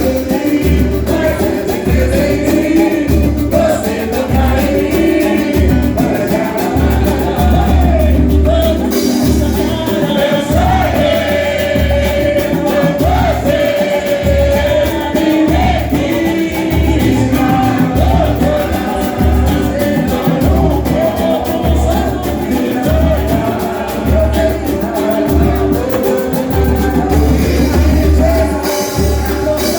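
Live samba band playing with a lead singer: a wavering sung melody over a steady, deep, pulsing beat.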